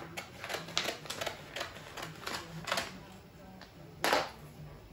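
Scissors snipping through a white racing-stripe sticker sheet, a quick run of crisp cuts, then one louder short swish about four seconds in.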